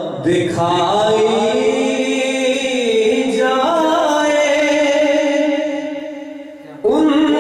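Solo male voice singing a ghazal in long, wavering held notes. The phrase fades out about six seconds in, and the next one begins just before the end.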